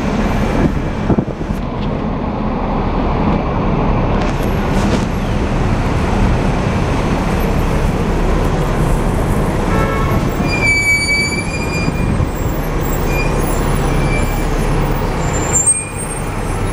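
Steady rumble of a Hong Kong double-decker electric tram running along its tracks, heard from on board. A few short high-pitched tones sound about ten seconds in.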